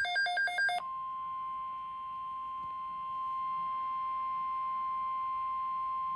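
NOAA Weather Radio warning alarm tone: one steady high 1050 Hz tone held for about five seconds, then cut off, the signal that an alert message follows. It is preceded in the first second by a brief run of rapid electronic beeps.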